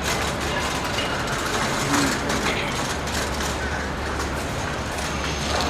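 Steady city street background: the continuous low hum and hiss of traffic, with no single event standing out.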